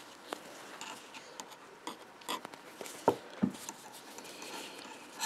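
Soft rubbing and small clicks of a metal crochet hook and thick yarn being worked by hand close to the microphone, with two short louder knocks about three seconds in.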